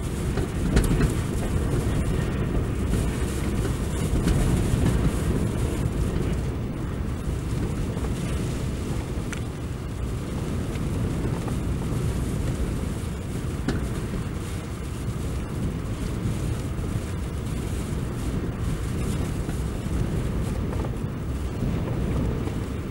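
Heavy surf breaking on a rocky shore in a storm, with strong wind buffeting the microphone: a deep, continuous rumbling rush that swells and eases but never stops.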